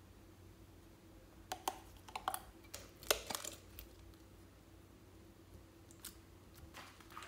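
Metal spoon clicking and scraping against a glass bowl and a slime container as clear slime with pearl beads is spooned out. The taps come in a quick cluster a second and a half in, with a few more near the end, over a faint steady hum.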